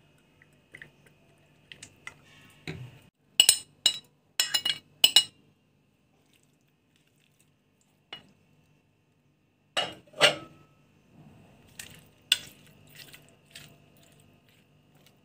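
Metal fork clinking against a china plate and a metal baking pan while small fish are scraped and spread out. There is a quick run of about five ringing clinks about three seconds in, two more near the middle, and another a couple of seconds later.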